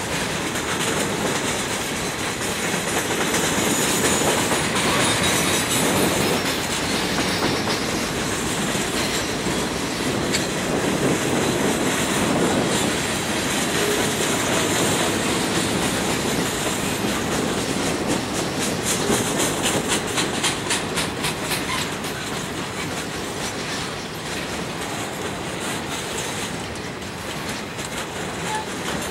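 Freight cars of a manifest train rolling past: a steady rumble of wheels on rail, with a rapid clickety-clack of wheels over rail joints that comes up strongest about two-thirds of the way through.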